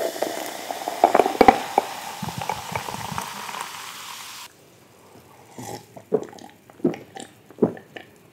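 Pepsi poured fizzing, a steady carbonated hiss that cuts off abruptly after about four and a half seconds, followed by a few soft, separate mouth and swallowing sounds.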